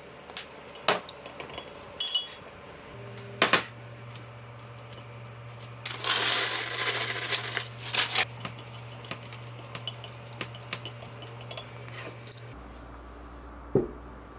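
Small hard objects clicking, clinking and clattering as they are handled, with a louder rustling, scraping stretch of about two seconds midway, over a low steady hum.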